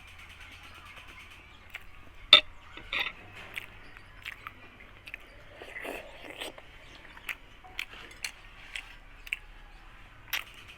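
A person eating chicken curry close to the microphone: chewing and biting with scattered short, sharp crunches and clicks, the loudest about two seconds in.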